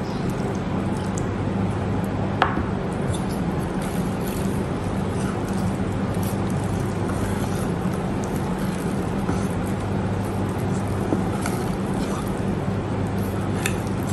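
Wire whisk working thick batter in a glass bowl as milk is mixed in: soft squelching with faint clicks of the wires against the glass, over a steady low hum.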